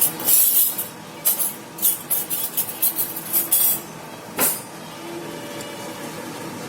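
Quick metal clinks and knocks of kitchen utensils against a pressure cooker of cooked dal, about a dozen over four seconds, the last and loudest about four and a half seconds in. A steady low background follows.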